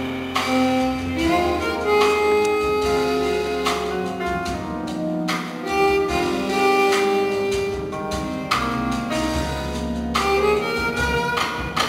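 Live jazz from a piano trio: grand piano chords and upright double bass with drums, under a long, held melody line.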